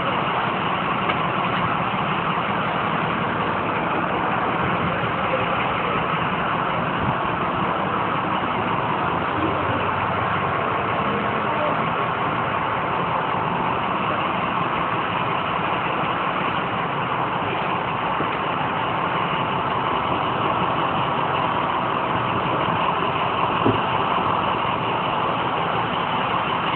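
Steady, engine-like mechanical noise that does not change, with one short knock near the end.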